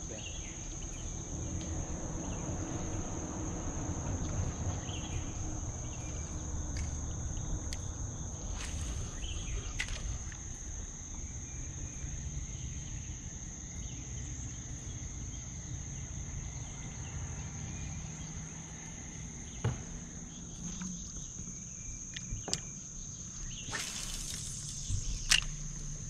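Steady, high-pitched chorus of insects droning over a low rumble of outdoor noise, with a few faint clicks and knocks late on.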